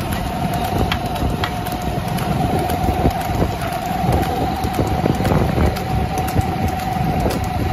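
Motorcycle running at speed alongside a buffalo cart, with wind buffeting the microphone and a steady whine throughout. Scattered clicks and knocks are heard through it.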